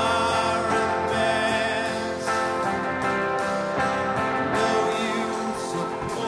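Live rock band playing: electric guitar and keyboard over a steady drum beat.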